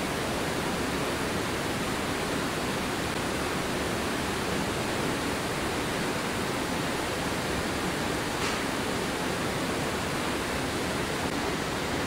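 Steady, even rushing noise of factory background air, unchanging throughout, with one faint tick about eight and a half seconds in.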